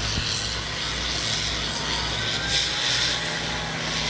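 Demolition derby cars' engines running steadily, with a high hiss that swells and fades a few times.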